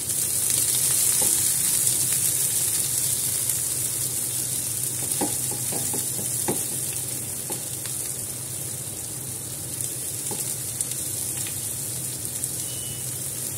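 Chopped onions sizzling as they fry in hot oil in a kadai, stirred with a wooden spatula, with a few light knocks of the spatula against the pan between about five and ten seconds in.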